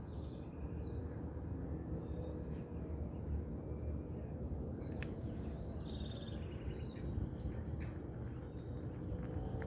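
Several birds chirping and calling in short notes and glides, with a quick trill about five seconds in, over a steady low rumble.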